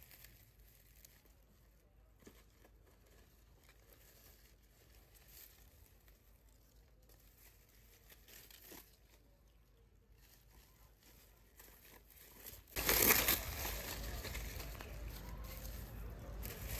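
Dry banana leaves crinkling and crackling faintly as they are rolled and tied into a ring-shaped head support. About thirteen seconds in, a much louder, even noise starts abruptly.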